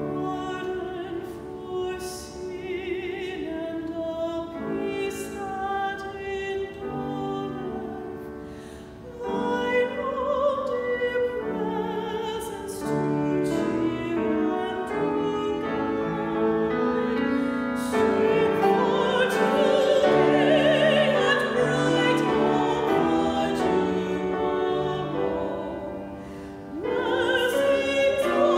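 Two women singing a hymn with vibrato, accompanied by piano, with short breaks between phrases.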